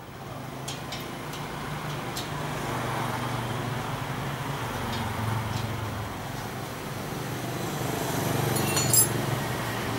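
A low, steady motor-vehicle engine hum that swells and eases, with a few light metallic clicks from the treadle pivot of a cast-iron Singer treadle stand being fitted, and a sharper cluster of clicks about nine seconds in.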